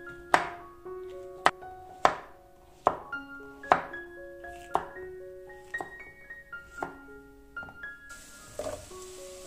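Chef's knife chopping zucchini on a wooden cutting board, a sharp knock about once a second, over gentle piano background music.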